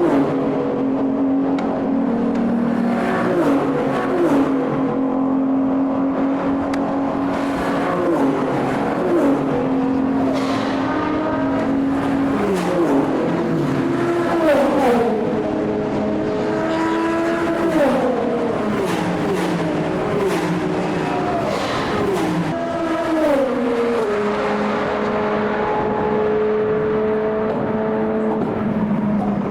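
Endurance racing cars going past at speed one after another, each engine note sweeping down in pitch as it passes, with a steady engine hum underneath.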